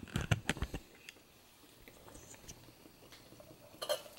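Handling noise: a quick run of light clicks and knocks, then quiet, then another short clatter near the end.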